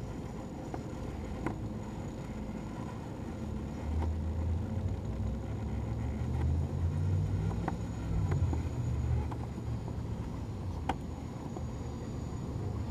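RC rock crawler's Holmes Hobbies Revolver brushless motor and portal-axle drivetrain humming at crawl speed. The hum swells in a few pushes in the middle stretch, with a few light clicks.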